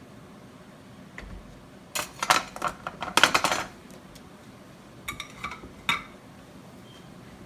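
Kitchen clatter: metal utensils and containers clinking and knocking on a countertop beside a pot of grits. A dense run of clinks comes about two seconds in, and a few more knocks follow around five to six seconds.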